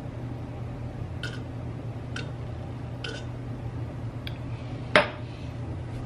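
A drinking glass set down on a stone countertop with one sharp knock about five seconds in, after a few faint short sounds while she drinks. A steady low hum lies underneath.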